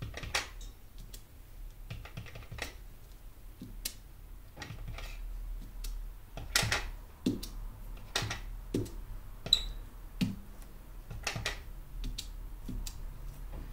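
Irregular light taps and soft thuds of a stamp being dabbed onto a dye ink pad and pressed down onto paper planner pages on a table, with one brief high squeak about nine and a half seconds in.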